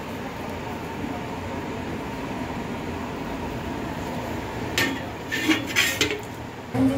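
Food being scraped out of a metal wok into a ceramic serving dish: a steady background hiss, then a quick run of sharp scrapes and knocks of a utensil against the wok about five seconds in, and one more knock near the end.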